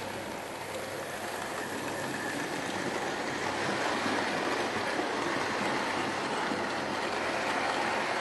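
Hornby OO gauge model train, a Princess Royal Class locomotive hauling maroon coaches, running on the track: a steady whirring rumble of motor and wheels that grows louder over the first few seconds as the train draws near, then holds.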